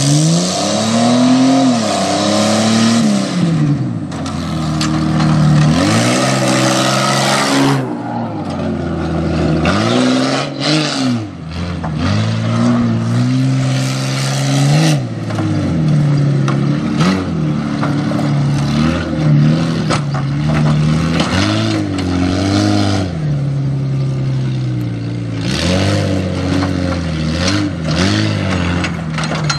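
1999 Jeep Cherokee's engine revving up and down again and again under load as the truck powers over dirt and a log pile, with a hiss of noise loudest in the first several seconds.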